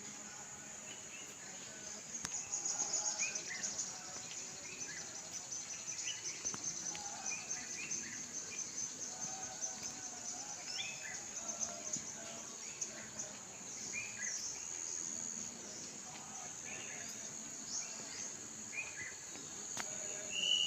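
Insects trilling steadily at a high pitch, in rapid pulses, with scattered short bird chirps.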